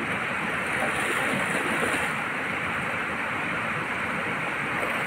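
Steady rushing of a mountain river flowing over rocks and rapids.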